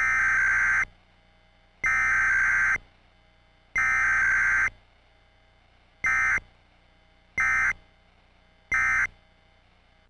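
Emergency Alert System digital data bursts cutting into the broadcast: three electronic bursts of about a second each, the alert's SAME header, then three short bursts, the end-of-message code.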